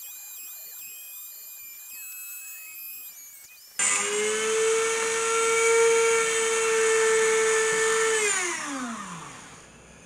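Dremel rotary tool with a soft copper wire brush switched on about four seconds in, running at a steady high-pitched whine. It is switched off and spins down with falling pitch near the end. The cheap brush has worn out in about two minutes.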